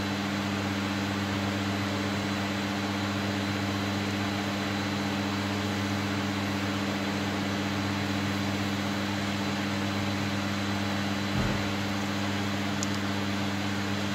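Steady low mechanical hum over a hiss, with a brief soft knock about eleven seconds in.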